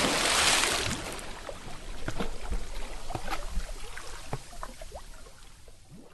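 Water splash dying away: the rush of spray fades over the first second, then the water settles with scattered drips and small bubbling plops that thin out and fade.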